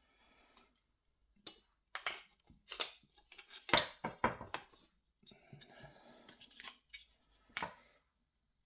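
Plastic casing of a winch remote being handled and pulled apart: a series of sharp clicks and knocks, the loudest about four seconds in, with a few seconds of scraping and rustling after.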